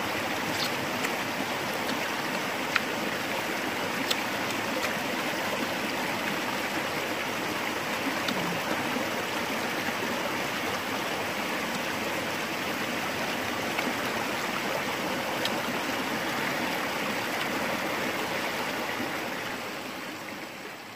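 Steady rushing of a stream, with a few brief faint ticks, fading out near the end.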